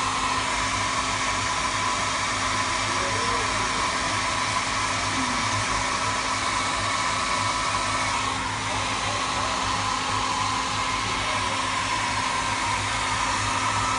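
Handheld electric hair dryer blowing steadily, a constant rushing whine, aimed at a blown-sugar balloon to cool and set the sugar; it dips briefly about eight seconds in.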